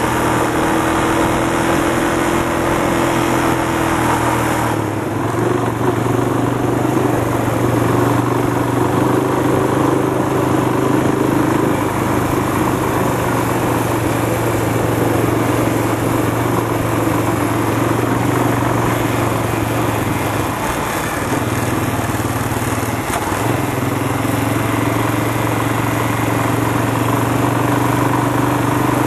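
Quad bike (ATV) engine running steadily while riding a dirt trail, over a constant rushing noise. The engine note shifts about five seconds in and eases off briefly about two-thirds of the way through before picking back up.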